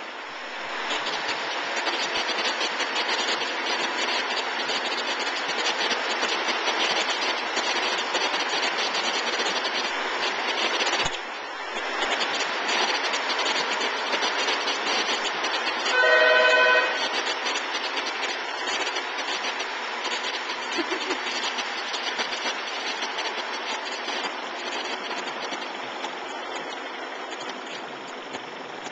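Commercial multi-head embroidery machines (Tajima) stitching: a dense, fast mechanical clatter of needle strokes that dips briefly about 11 seconds in. About 16 seconds in, a loud beep-like tone sounds for about a second.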